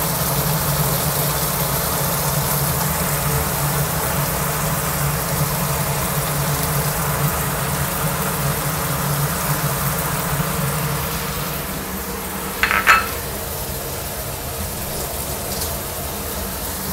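Prawns in chili-paste sambal sizzling and bubbling in a metal pan as thick tamarind juice is poured in. A brief double clack, such as a bowl knocking the pan, about three-quarters of the way through.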